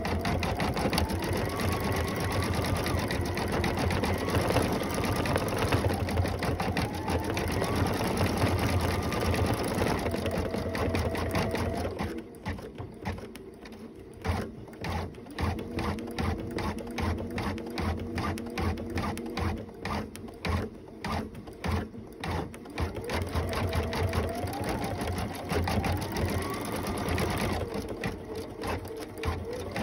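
Computerized embroidery machine stitching a design into felt: the needle runs rapidly while the motor whine rises and falls in pitch as it speeds up and slows. Around the middle it drops to a quieter run of separate, evenly spaced stitch beats, then picks up speed again near the end.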